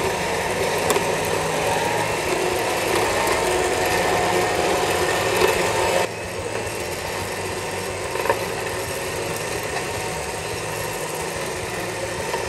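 A 12,000 lb electric winch's motor and gear drive running steadily as it winds its steel cable in with no load on the line. The sound drops in level about halfway through.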